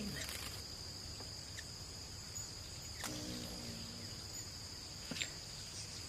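Steady, high-pitched chorus of crickets. A faint murmured voice comes in briefly about halfway through.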